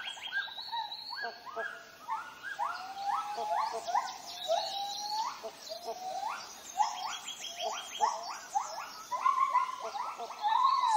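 Tropical rainforest animal calls: many overlapping short calls from several animals at once, each a quick note rising in pitch, with a fast rattling trill at the start and again near the end.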